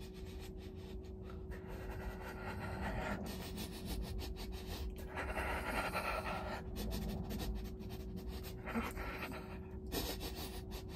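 A person eating a soft cookie close to the microphone: quiet mouth sounds and heavy breathing, over a faint steady hum.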